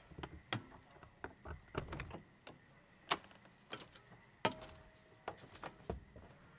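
A run of irregular knocks and clicks from a truck camper's entry door being worked open and someone moving on its entry steps. The loudest knocks come about halfway through, one of them ringing briefly.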